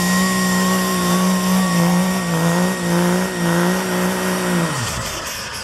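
24-valve Cummins diesel in a Dodge pickup pulling under heavy load: a steady engine drone with a loud, high turbo whistle over it. About four and a half seconds in, the engine note drops away sharply.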